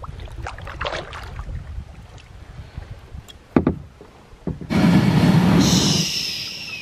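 Paddle splashes and a single knock, then about four and a half seconds in a loud, rough scraping rush lasting about a second and a half as the plastic kayak's hull runs aground on the sandy lake shore.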